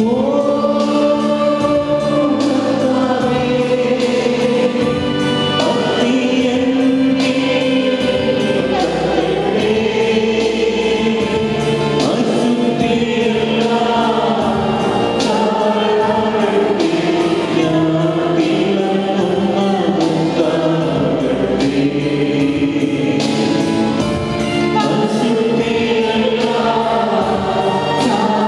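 A church congregation singing a hymn together, sustained sung lines with no break.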